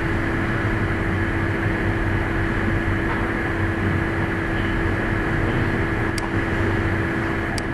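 Steady background hiss and hum with a constant low tone, like a fan or air conditioner heard through the recording microphone. Two sharp mouse clicks come near the end.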